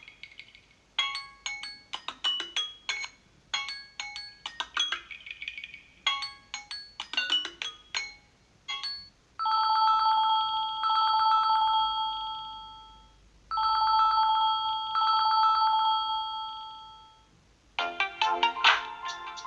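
Samsung Galaxy A12 ringtones playing in turn. First comes a tune of short plucked notes. Then a trilling ring of steady fluttering tones sounds twice, each ring about four seconds long, and a new, busier tune starts near the end.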